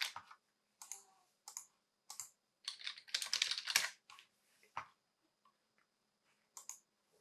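Typing on a computer keyboard: a few separate keystrokes, then a quick run of typing about three seconds in, then scattered single clicks.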